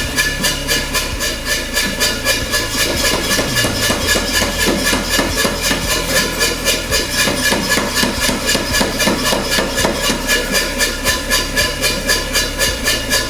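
Mechanical forging hammer running, striking at a steady rate of about four blows a second over a low motor hum.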